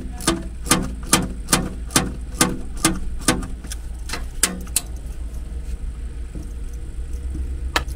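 Hand ratchet clicking in a steady rhythm, about two clicks a second, as it backs out a bolt holding down an inverter. The clicking stops about four and a half seconds in, with one more click near the end, over a steady low hum.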